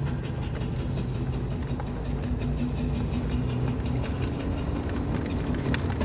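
Classic car's engine running steadily under way, heard from inside the car, with road and wind noise; its pitch edges up a little about four seconds in.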